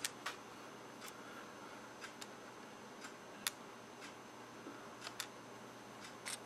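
Sharp plastic clicks from a Dell Latitude D430 laptop's keyboard and its top edge as fingers press it down into place. There are about nine at irregular intervals, the loudest at the very start and about three and a half seconds in.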